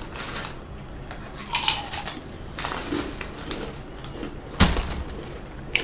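Close-miked eating sounds: crunchy bites of fried takeout chicken with paper napkin rustling. Several sudden crunches and clicks, the loudest a hard crunch with a thump about four and a half seconds in.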